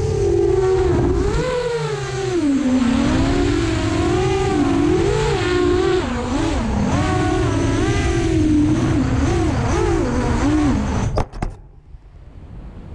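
Brushless motors and propellers of a 7-inch FPV quadcopter whining in flight, the pitch rising and falling with throttle. The sound cuts off suddenly about eleven seconds in, leaving faint wind and surf.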